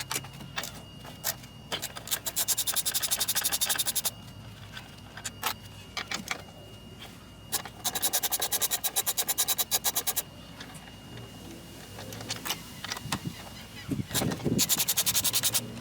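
Hand ratchet clicking in quick bursts of a second or two, three times, with scattered knocks and taps of tools between.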